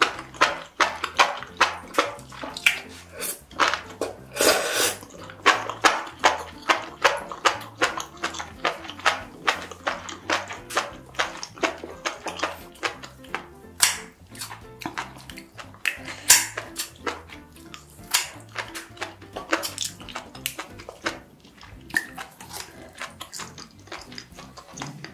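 Close-miked chewing and mouth sounds of someone eating chewy food in a thick sauce: wet smacks repeating about twice a second, with a longer wet burst about four and a half seconds in and another near sixteen seconds.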